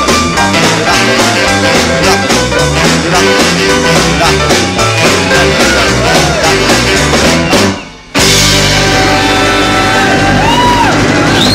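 Live jump-blues band of saxophones, guitar, piano, bass and drums playing a boogie with a steady driving beat. About eight seconds in the band cuts out for a moment, then comes back on a long held closing chord.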